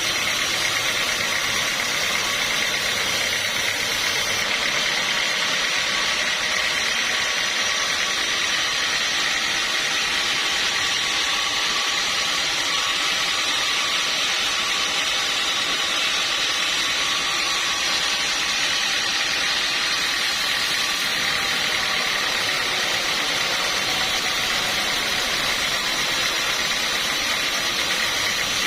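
Steady, unchanging noise of sawmill machinery running, with no strokes or pauses.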